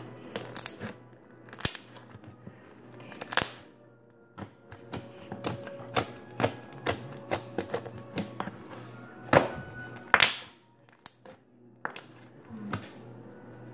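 Slime being squished, stretched and folded, giving irregular sticky clicks and air-bubble pops, the loudest a pair about nine and ten seconds in. Faint music plays underneath.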